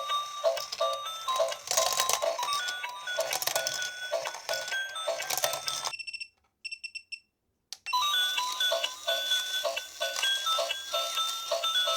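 A simple electronic melody of beeping tones over a steady pulse of about three beats a second. It cuts out about six seconds in, leaving a few faint beeps, and starts again almost two seconds later.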